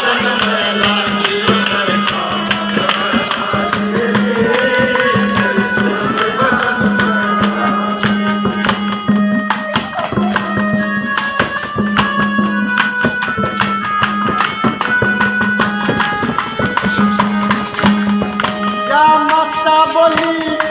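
Instrumental break in a devotional folk song: a melody instrument playing held notes over a steady low drone, with fast rhythmic percussion. A voice comes back in near the end.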